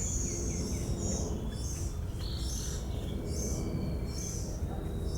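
A bird calling: short, high-pitched chirps repeated at a steady pace, about one every two-thirds of a second, over a low rumble of background noise.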